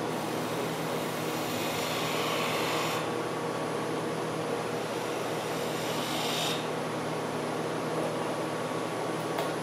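Wood lathe running while a hand-held turning tool cuts a tenon into a small spinning workpiece, the cutting hiss and scrape of wood being shaved away. It gets brighter in two stretches, about one to three seconds in and again around six seconds, over a steady machine hum.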